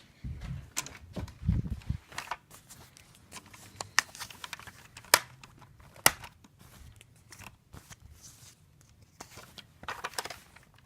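Scattered sharp clicks and knocks with rustling handling noise, a few low thumps in the first two seconds and the loudest clicks about four, five and six seconds in, from toy foam-dart blasters and a hand-held camera being moved about during play.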